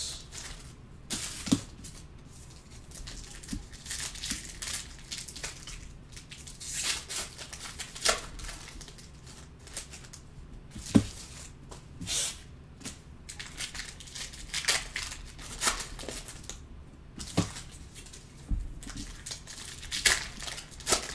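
Foil trading-card pack wrappers being torn open and crinkled by hand, an uneven rustling broken by a few short sharp clicks.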